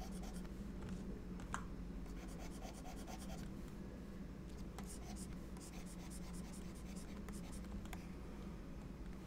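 Faint scratching and light taps of a stylus on a graphics tablet, over a steady low hum.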